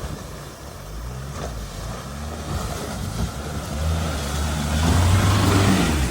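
Four-wheel-drive vehicle's engine working on an off-road track, its pitch rising and falling with the throttle and loudest from about four seconds in, over a steady rushing noise.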